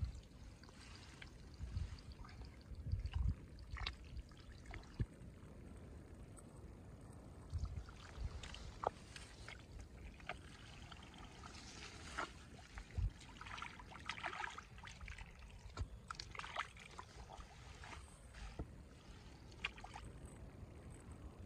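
Hands digging and squelching through wet pond mud and matted grass roots: irregular wet squelches, small splashes and dribbles of water, with a few low thumps.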